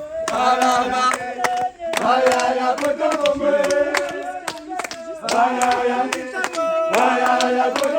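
A group of villagers singing together in chorus, with hand clapping.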